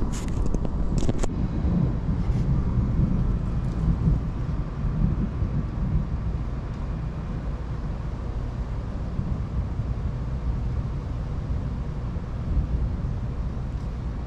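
Steady low rumble of a night thunderstorm, with a few sharp clicks in the first second or so as the camera is handled.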